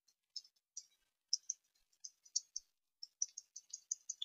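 Computer keyboard typing: a run of faint, light key clicks at an uneven pace, coming faster near the end.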